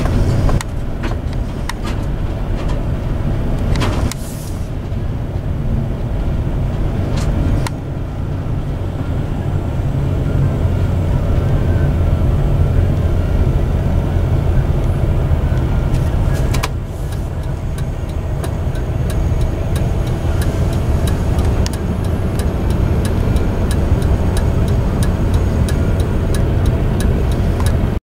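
Steady low road and engine rumble inside a moving car's cabin, with a few sudden drops in level.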